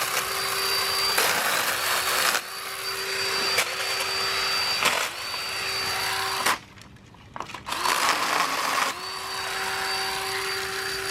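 Battery-powered chainsaw lopper's electric motor and chain running in several bursts, each start rising quickly to a steady whine, while it cuts through a branch. There is a longer pause about two-thirds of the way through before it starts again.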